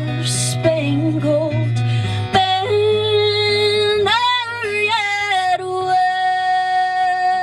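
Music: a woman singing long, wavering held notes over guitar accompaniment.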